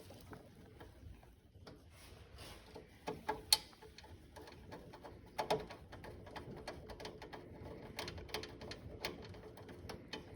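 Faint, scattered clicks and taps of small metal parts and a hand tool as a furnace flame rod is screwed back onto its mounting. A sharper knock comes about three and a half seconds in, and light ticking runs on in the second half.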